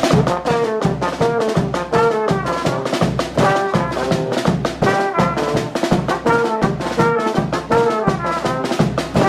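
Fanfarra marching band playing: brass horns carry the melody over a steady drum beat.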